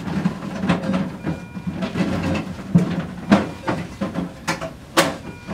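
Clicks, knocks and rustling of cable and bedding as ECG monitor leads are attached to a patient-simulator manikin, over a steady low hum.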